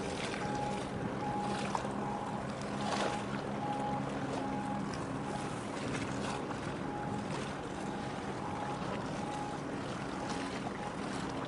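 Boat engine running with a steady low drone, with wind on the microphone and choppy water splashing. A short, faint beep repeats evenly throughout.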